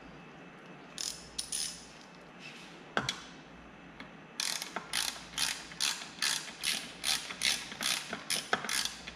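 Hand ratchet wrench snugging the lower-unit mounting bolts on a Tohatsu 20 hp outboard. A few scattered clicks and a sharp knock come first. About four seconds in, a steady run of quick ratcheting strokes begins, roughly three a second.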